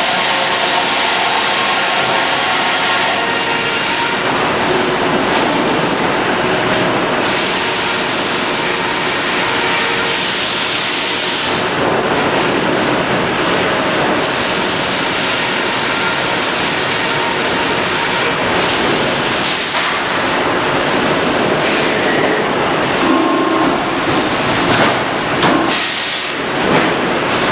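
Sawmill machinery running loud and steady, with a hiss that shifts in strength every few seconds and a few brief surges near the end.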